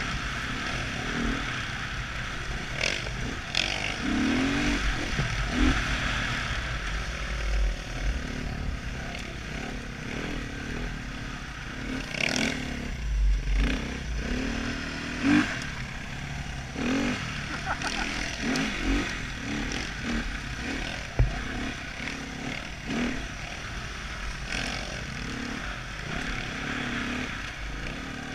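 Husqvarna TE300 two-stroke dirt bike engine revving up and down while being ridden, with wind rushing over the helmet-mounted microphone. Scattered knocks and clatter from the bike over bumps, with one sharp knock about three quarters of the way through.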